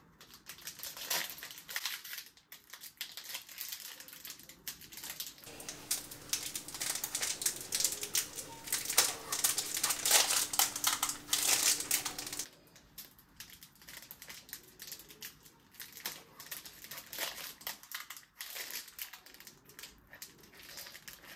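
Feastables Deez Nutz chocolate bar wrapper crinkling and crackling in the hands as it is twisted and pulled at to get it open, in irregular bursts. It is loudest through the middle stretch and quieter near the end.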